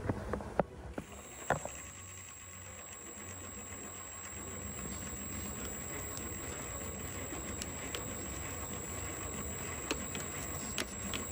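A few sharp clicks and knocks of a tool working plastic radiator clips in the first second and a half, then a steady hiss with a thin high-pitched whine; a couple more clicks near the end.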